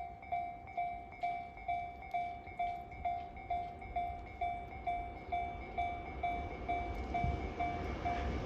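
Japanese railway level-crossing alarm ringing its electronic two-tone ding about twice a second, the warning that a train is approaching. Near the end the rumble of an approaching Takasaki Line train grows louder beneath it.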